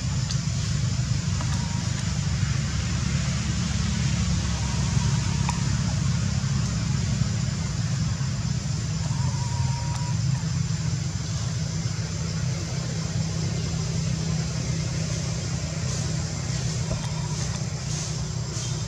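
Steady low rumble of outdoor background noise with an even high hiss, and a few faint short whistled chirps now and then.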